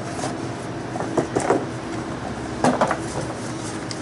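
A steady mechanical hum runs throughout, with two brief clusters of clattering knocks, about a second in and again near three seconds.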